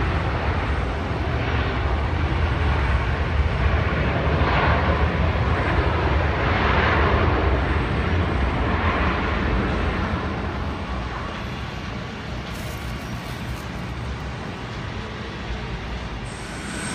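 Jet airliner's engines rumbling as the twin-engine widebody rolls down the runway. The noise is loud for the first ten seconds or so and then eases off as the aircraft moves away.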